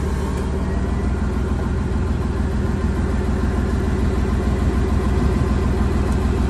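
Heavy recovery truck's diesel engine running steadily, powering the hydraulics as the rear spade legs are pressed down into the ground. It gets a little louder about halfway through.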